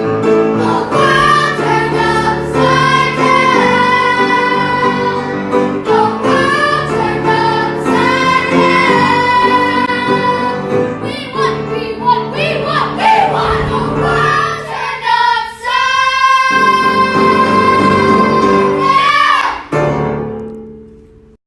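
Sung music: a singing voice holding long notes over sustained instrumental accompaniment, fading out near the end.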